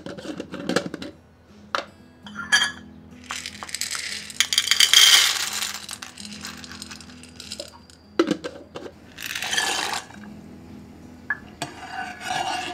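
Dry elbow macaroni poured from a glass jar into a small stainless steel bowl, the hard pasta pieces rattling and clinking against the metal, loudest about four seconds in and again briefly near the tenth second. Before it, a few sharp clicks as the jar's metal lid is taken off.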